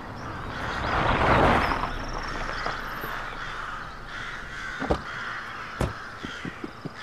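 Crows cawing, with a rushing noise that swells and fades about a second in and two sharp knocks near the end.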